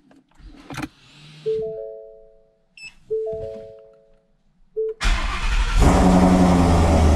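Two electronic dashboard chimes ring a second and a half apart, then the 2017 Mustang GT's supercharged 5.0-litre V8 cranks and fires about five seconds in and settles into a loud, steady idle. This is the first start on a freshly flashed tune.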